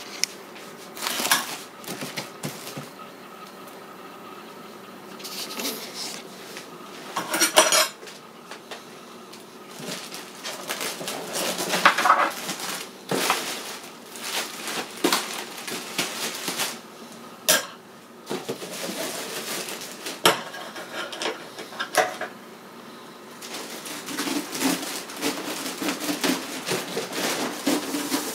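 Clear plastic wrap crinkling and rustling as a wrapped cardboard box is handled and cut open, with irregular sharp clicks and metallic clinks from scissors.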